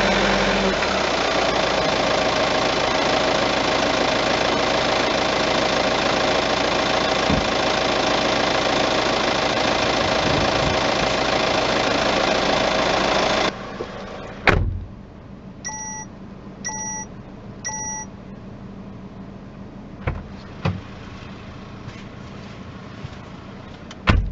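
Peugeot 508 engine running with a loud, steady noise that cuts off abruptly about halfway through; the owner is chasing a noise that seems to resonate at one particular engine speed. Then a sharp knock, three short electronic beeps a second apart, and a few thumps.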